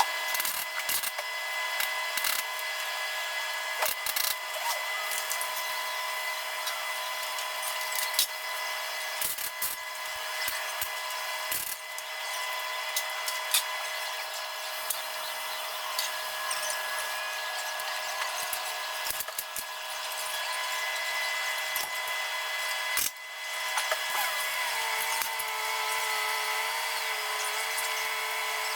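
Sped-up workshop sound from car repair work: a steady high-pitched hum with frequent sharp clicks and clatters of tools.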